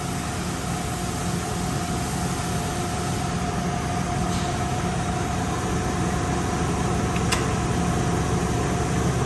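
Toyoda FV1365 vertical machining center running: a steady mechanical hum with a constant mid-pitched whine, and a couple of light clicks.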